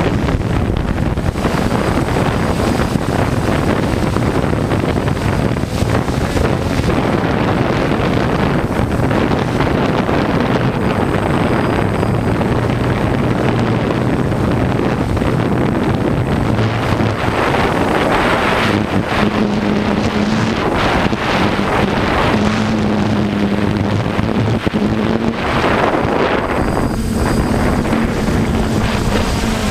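Heavy wind buffeting the microphone over the low hum of a multirotor drone's motors and propellers. The hum shifts in pitch in steps and stands out more in the second half.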